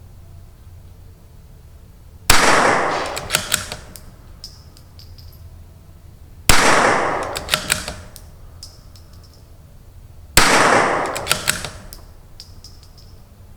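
Three .22 LR rifle shots, about four seconds apart, from a bolt-action CZ 457 with an ATS barrel tuner firing Wolf Match Extra match ammunition. Each shot trails off in an echo, and lighter clicks follow as the bolt is worked between shots.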